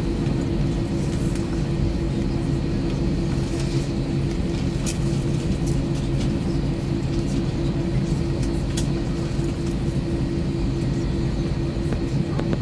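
Airbus A321 cabin noise while taxiing: a steady rumble of the jet engines and cabin air with a constant hum, and a few faint ticks.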